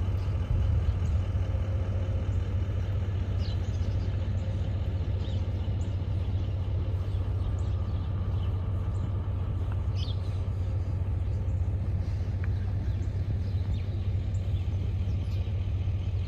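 An engine idling steadily, a low even rumble, with faint short bird chirps above it.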